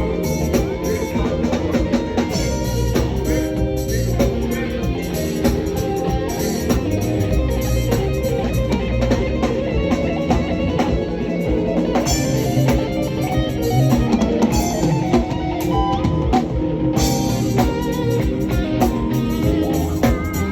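Band music with guitar and drum kit playing continuously.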